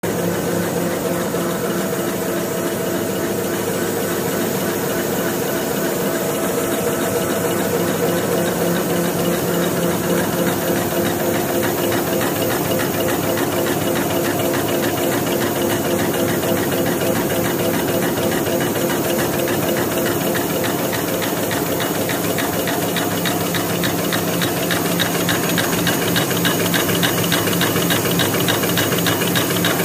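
Automatic 300x300 table napkin paper folding machine running: a steady mechanical hum with a fast, even clicking from its rollers and folding parts, a little louder in the last few seconds.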